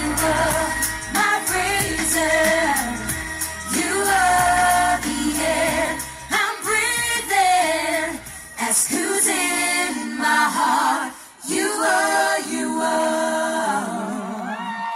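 A three-piece female pop group singing a song together through the stage PA, over a backing track with bass and a ticking beat. The bass and beat thin out about ten seconds in while the singing carries on.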